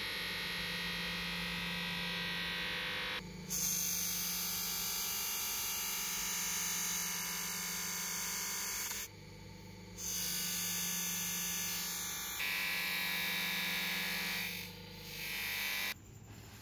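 Electric motor spinning a buffing wheel, with a steady hum under a hissing rush as the steel of needle-nose pliers is pressed against the wheel. The hiss drops out briefly three times, when the pliers come off the wheel, and the sound ends abruptly near the end.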